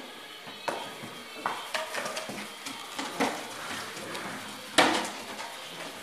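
Irregular clatters and knocks of puppies playing with toys, the loudest nearly five seconds in.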